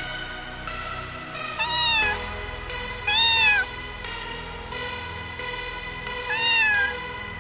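White cat meowing three times, each meow about half a second long and rising then falling in pitch, over electronic background music.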